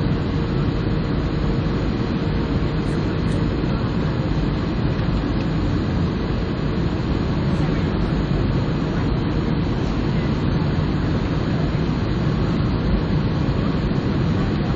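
Steady low roar of engine and airflow noise heard inside the cabin of an Airbus A320-family airliner on final approach. A faint steady whine sits on top for the first few seconds, then fades out about four seconds in.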